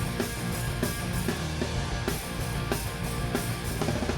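Rock band playing live, an instrumental passage between sung lines: electric guitars, bass and drum kit keeping a steady beat.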